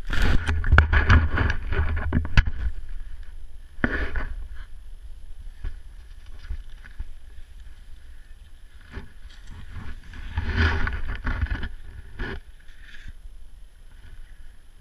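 Wind buffeting an action camera's microphone as a low rumble, with rustling and scraping bursts, loudest in the first couple of seconds and again around ten seconds in, as the camera is handled and carried down a snowy slope with scraping over the snow.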